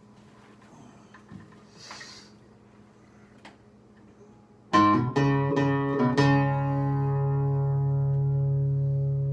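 Guitar tuned down a half step: a few faint taps, then about halfway in a quick run of strummed chords, the last one left to ring out steadily.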